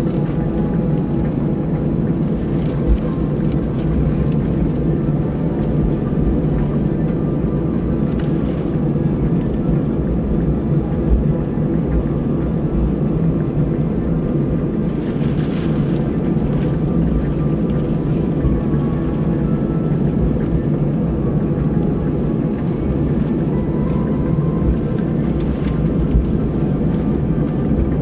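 Airbus A320 cabin noise while taxiing: a steady low rumble from the jet engines at taxi power, heard from inside the passenger cabin.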